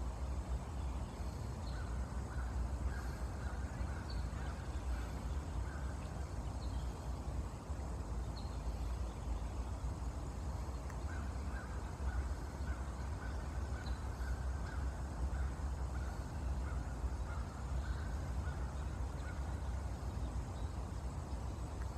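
Outdoor ambience with a steady low rumble. Twice, for several seconds at a time, a faint, thin, rapidly pulsing animal call sounds in the distance.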